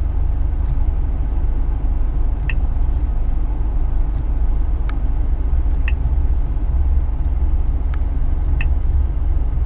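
Scania S500 truck on the move, heard from the cab: a steady low engine and road rumble with a few faint, unevenly spaced ticks.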